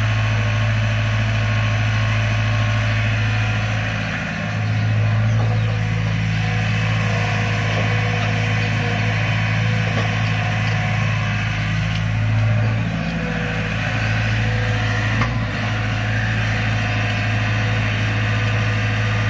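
Diesel engines running steadily as a crawler excavator loads soil into the trailer of a Sonalika International DI 50 tractor standing at idle; a low, even engine hum dips briefly about 4 seconds in and again near 13 and 15 seconds.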